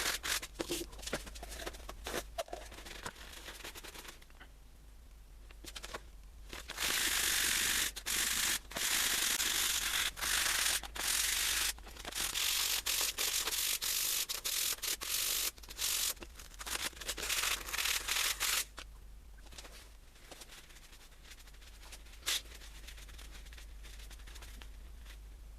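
Abrasive rubbing on rusty metal during a restoration: a run of back-and-forth scrubbing strokes, each about a second long, with scattered shorter scrapes at first. It dies away after about eighteen seconds.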